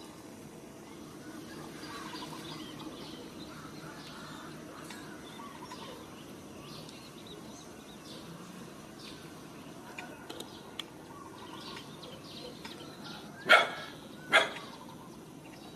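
Two short, loud animal barks about a second apart near the end, over faint scattered bird chirps.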